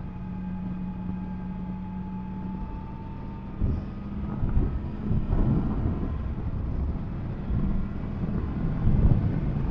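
Yamaha MT-10 SP's crossplane inline-four engine running at steady road speed, recorded on board, its note slowly rising. From about four seconds in, uneven wind buffeting and engine surges take over.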